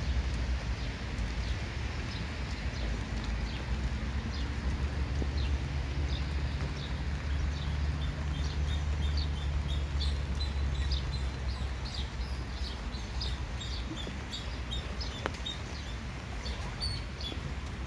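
Small birds chirping in many short high calls, busiest in the middle, over a steady low rumble of wind on the microphone.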